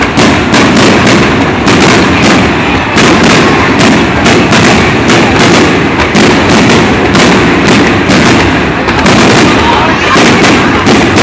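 A fireworks display: dense, rapid bangs and crackles, several a second with no let-up, loud enough to overload the recording.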